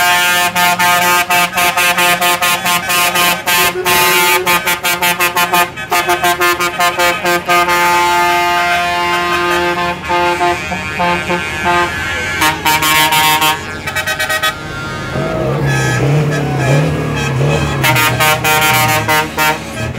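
Truck air horns sounding from passing trucks, several at once, in long held notes and short blasts. Loud throughout; for a few seconds after the three-quarter mark a pitch that wavers up and down joins in.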